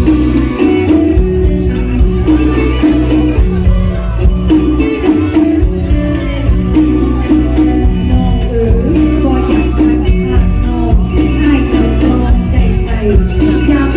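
Live mor lam band playing at full volume: electric guitars, bass and drum kit over a steady beat.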